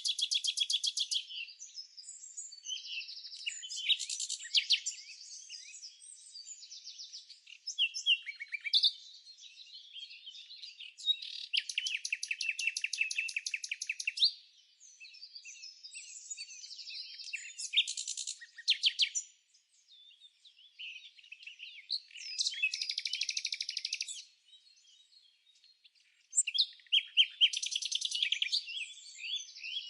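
Songbirds singing a string of chirps and warbled phrases, with several fast trills of one to three seconds each. There are short gaps between phrases, about two-thirds of the way in and again shortly after.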